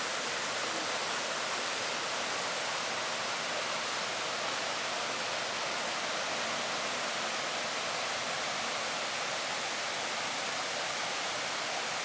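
Small waterfall pouring into a pool: a steady rush of falling water with no change in strength.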